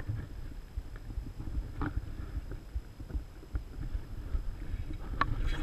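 Low, uneven rumble with a few faint clicks and taps from the fishing rod, reel and line being handled close to the microphone.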